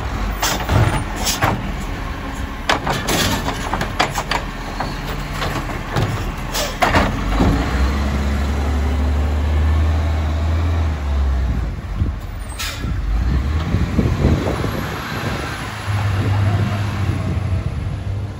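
Side-loader garbage truck emptying a wheelie bin: the automated arm and bin clatter and knock sharply several times over the first seven seconds. Then the truck's diesel engine drones loudly as it pulls away, about eight seconds in, and again near the end.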